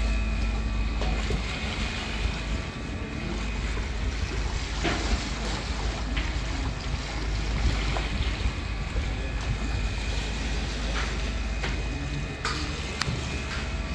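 Steady low rumble of a car ferry under way, with wind on the microphone and water rushing along the hull. A few light clicks come about five seconds in and near the end.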